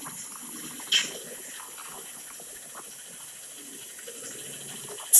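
Steady street noise played through a small phone speaker, with a short hiss about a second in and a louder one at the very end.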